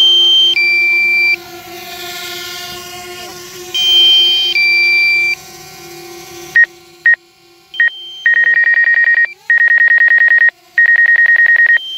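DJI drone app's low-battery alert tones: a falling two-note beep twice over a steady hum, then, after the hum drops away about halfway, a few short beeps and three runs of rapid high beeping, warning that the drone's battery is low.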